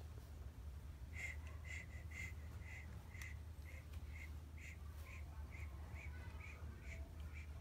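Short high chirps repeated evenly, a little over two a second, over a low steady hum.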